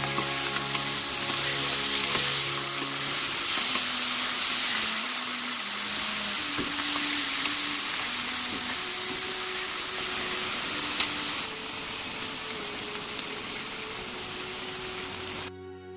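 Beef chunks sizzling as they sear in a hot frying pan, with occasional clicks and scrapes of tongs as the pieces are turned. The sizzle cuts off suddenly near the end.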